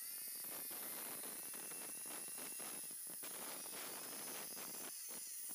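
Hasston ART.3110-001 marble cutter, a 1200 W handheld tile saw, cutting through a ceramic floor tile: a steady, high-pitched hiss of the blade grinding through the tile.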